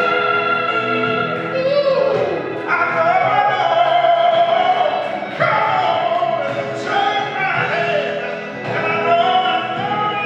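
A man singing into a handheld microphone over sustained musical accompaniment, holding long notes, with his voice sliding downward about two seconds in.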